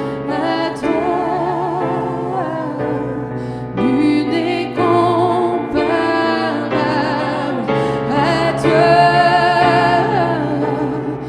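Two women singing a gospel song over instrumental accompaniment, with vibrato on long held notes.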